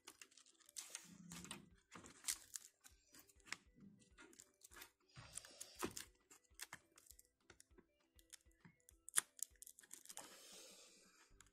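Faint clicks, taps and scratchy rustling of a strap and adhesive tape being handled and pressed onto a motorcycle helmet's plastic shell, with a longer scraping rustle near the end.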